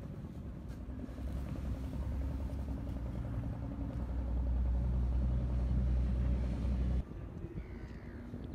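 A motor vehicle's engine running with a low hum that grows louder over several seconds, then cuts off abruptly about seven seconds in.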